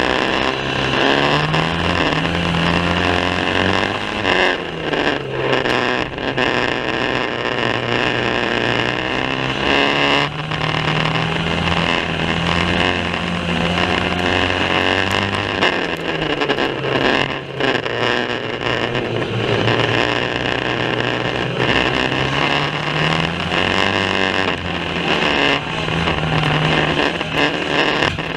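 Banger racing cars' engines running hard around the track, their pitch rising and falling over and over as cars accelerate, lift and pass, in a loud, rough-sounding recording.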